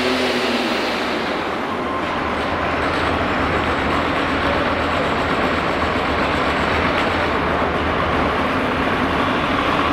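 Open-class diesel garden pulling tractor's engine running hard under load with a loud, deep rumble, its pitch dropping in the first half second; the din stays loud as the tractor grinds to a stop.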